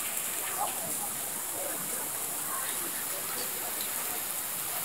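Steady rain falling, an even hiss throughout, with a few faint distant shouts from people playing in it.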